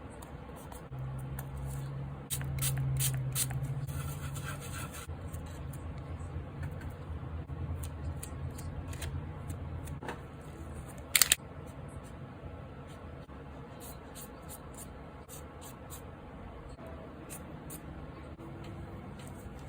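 Paper and craft tools being handled: scattered scrapes, rustles and small clicks, with a low steady hum through roughly the first half and one sharp click about eleven seconds in.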